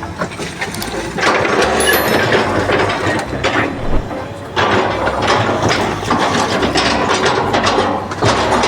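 Loud mechanical rattling and clicking in long stretches of a second or two.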